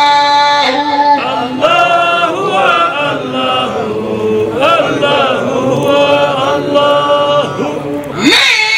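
Voices chanting a Sufi devotional poem, with long held and ornamented melodic notes. Near the end a man's lead voice comes in loudly on a sharply rising note.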